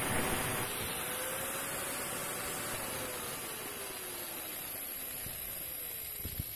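A just-under-500 W electric angle grinder with a wood-cutting saw blade, run from a battery inverter through a soft starter. The motor's whine rises in pitch about a second in, then falls steadily over a couple of seconds as the motor slows, over a steady hiss. A short click comes near the end.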